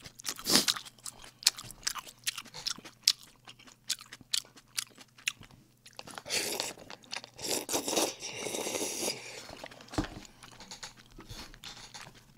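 Close-miked eating: a person chewing mouthfuls of cream jjamppong noodles, with many small clicks. About six seconds in, the noodles are slurped from the bowl in a longer noisy stretch that lasts until about nine seconds.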